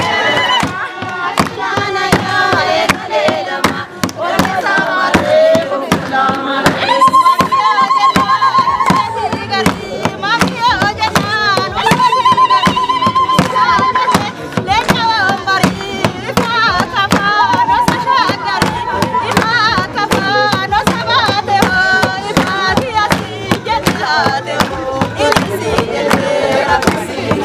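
Oromo wedding music: a voice sings long, wavering held notes over a fast, steady beat.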